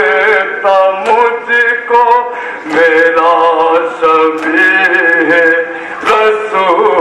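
A man singing a noha, an Urdu lament, in long held notes that waver in pitch.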